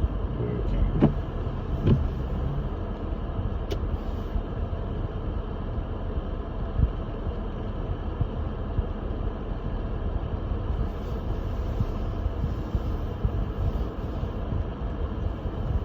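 Lexus GX470 SUV driving on a snow-covered road: a steady low rumble of road and drivetrain noise, with a few short knocks in the first few seconds.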